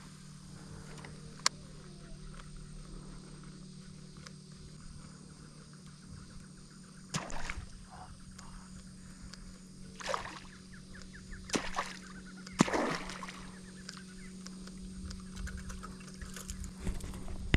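Several irregular splashes on the water, about seven, ten, twelve and thirteen seconds in, the last the loudest, over a steady low hum: a peacock bass striking at the lure on the surface and missing.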